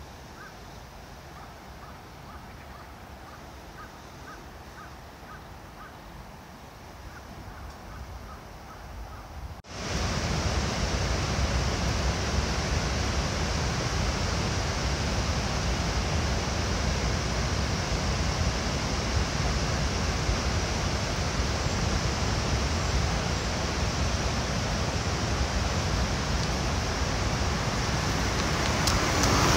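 Faint outdoor hiss with faint, evenly spaced chirps, then, about ten seconds in, a sudden change to a loud steady rush of water pouring over a gated river dam's weir.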